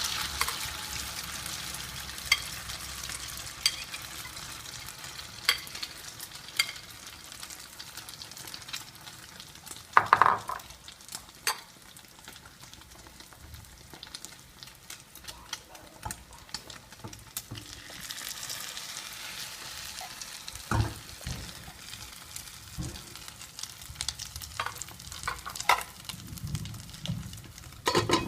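Egg and onion frying in a pan, a steady sizzle that swells again past the middle, with a utensil clicking and scraping against the pan throughout. A few louder knocks of the utensil on the pan, the loudest about ten seconds in.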